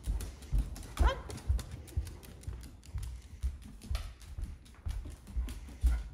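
Footsteps walking on a hard floor, a dull thump about twice a second, mixed with the light clicking of a small terrier's claws trotting on hardwood.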